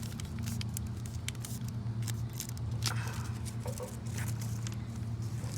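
A sheet of paper being handled and folded into a paper airplane: scattered crinkles, rustles and short crease taps over a steady low hum.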